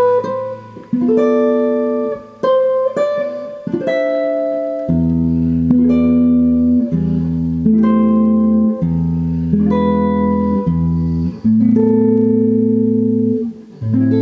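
Clean semi-hollow-body electric guitar playing a short chord-melody tune slowly, chord by chord: extended jazz chords such as E7 flat 9 and D minor 6 over A, each left to ring, with a low bass note sounding under the chords in the second half.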